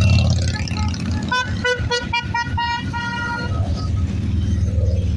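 Touring motorcycles and trikes riding past in procession, engines running low and steady. About a second and a half in, a vehicle horn honks in a quick run of short toots, the last ones held a little longer.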